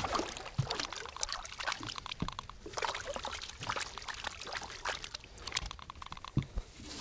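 Water splashing and trickling at a boat's side, in irregular small splashes and drips, as something is worked in the water by hand.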